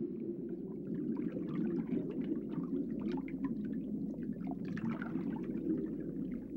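Underwater ambience: a steady, muffled low rush of water with many small bubbling and trickling ticks over it.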